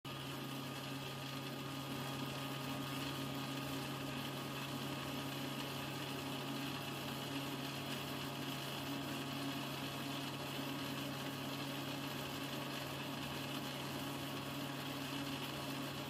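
Casdon Hetty toy vacuum cleaner running, its small battery motor giving a steady, even hum that starts suddenly.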